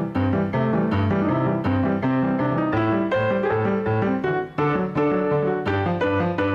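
Upbeat solo piano music: a melody over a steady, alternating bass line.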